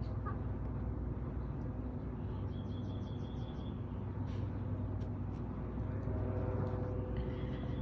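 Outdoor background: a steady low rumble like distant traffic, with faint high chirping trills about two and a half seconds in and again near the end.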